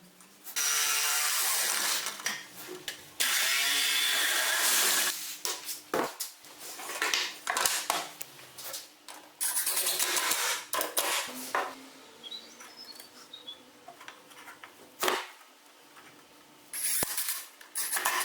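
A handheld power tool run in several short bursts of one to two seconds each, with knocks and clattering between them.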